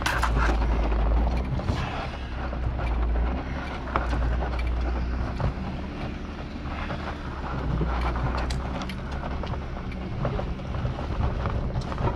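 Jeep Wrangler driving along a rough dirt track: a steady low engine and tyre rumble, with frequent sharp clicks and rattles as it bounces over the ground.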